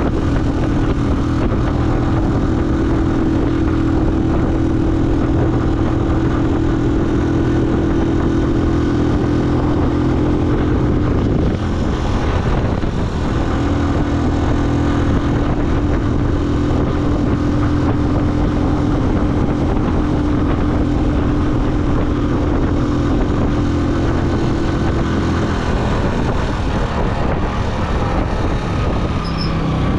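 A motor vehicle's engine running steadily on the road, heard from on board. Its steady note fades out twice, about a third of the way in and again near the end, then comes back.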